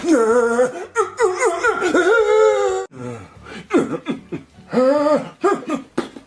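A voice making a series of drawn-out, wordless 'uh' noises that swoop up and down in pitch, sounding somewhat like laughter.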